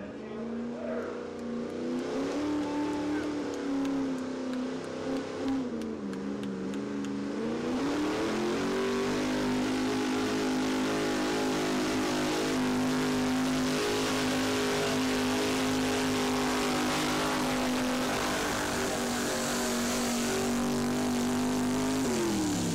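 Pulling truck's engine at full throttle during a pull. The revs climb, sag briefly about six seconds in, climb again and hold steady and high, then drop away near the end as the throttle comes off.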